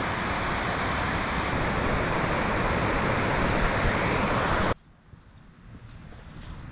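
River water rushing over a small weir and rapids, a steady loud rush that cuts off suddenly about two-thirds of the way through, leaving much quieter open-air background.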